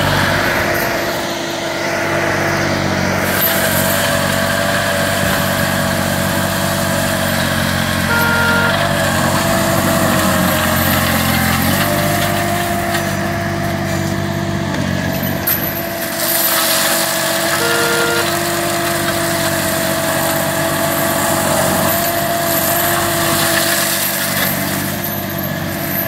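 Green Climber LV600 remote-controlled slope mower running steadily under load, its engine and forestry mulcher head shredding dense brush; the engine note shifts slightly about halfway through.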